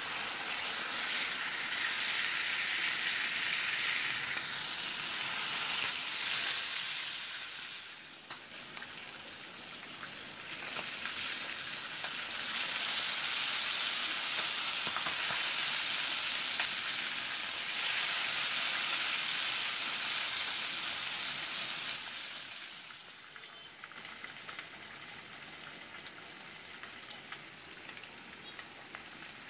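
Tandoori-marinated chicken legs sizzling in hot oil in a frying pan, the hiss starting suddenly as the first leg goes in. It swells and falls back in long stretches and is quieter near the end.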